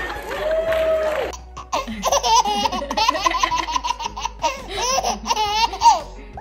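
Baby laughing hard in quick repeated bursts, starting about a second and a half in.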